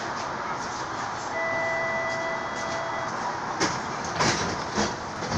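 Streetcar interior: the car's steady running hum, with a held beep on two pitches for about two seconds. Four sharp knocks follow in the last two seconds.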